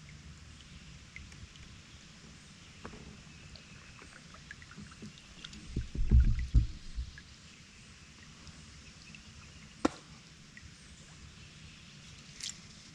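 Handling sounds in a fishing kayak on a creek: small scattered knocks and ticks over a low background of water and outdoor noise. A loud, low, rumbling bump comes about six seconds in, and a single sharp click near ten seconds.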